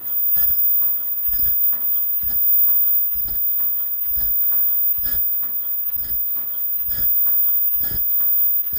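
Disposable face mask making machine running in its production cycle: a regular low thud about once a second, with lighter mechanical clicks between the strokes.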